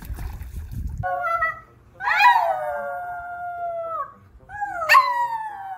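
A dog howling: a short call, then two long howls that each rise briefly and then slide down in pitch.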